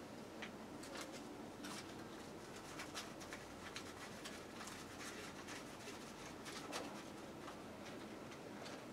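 Faint rustling and small irregular clicks of paper banknotes and a wallet being handled, over a low steady hum.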